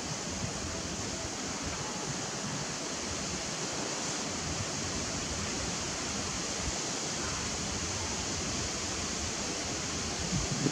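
Steady rushing wind noise, with a couple of low buffets near the end.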